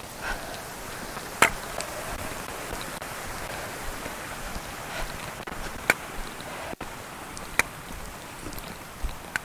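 Steady outdoor ambience: an even rushing noise with a few sharp, scattered clicks.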